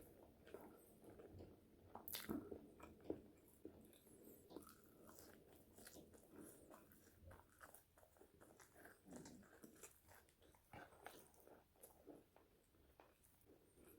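Close-miked chewing and biting of French fries: soft, irregular crunches and wet mouth clicks, with a sharper bite about two seconds in.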